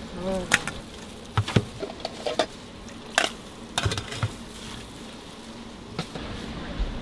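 Wire-mesh noodle strainer knocking and clanking against a metal pot rim and brass bowls as cooked thin noodles are drained and tipped out: a handful of sharp, irregular knocks over a steady low hum.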